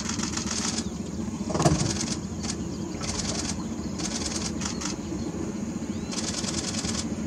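Boat motor idling with a steady low hum. Over it come short bursts of rapid, high-pitched pulsing that start and stop every second or so, and there is one louder knock about one and a half seconds in.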